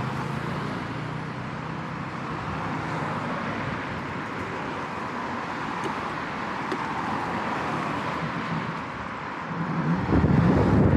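Road traffic noise, with cars driving past across the road. About ten seconds in, a louder low rumble of wind on the microphone sets in.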